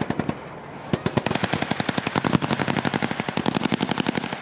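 Machine-gun fire in long, rapid bursts of about ten shots a second. A short lull comes about half a second in, and then the firing runs on almost unbroken.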